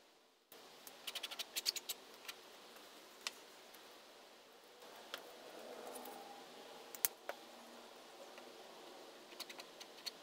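Sharp clicks and taps of a palette knife and paint tube being handled on a cluttered painting table while paint is laid on. A quick run of clicks comes about a second in, single taps follow with the loudest around seven seconds, and a few more come near the end.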